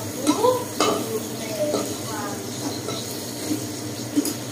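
Hot oil sizzling in a wok as fried tofu is lifted out with a wire spider strainer and a metal spatula, the utensils knocking and scraping against the wok several times.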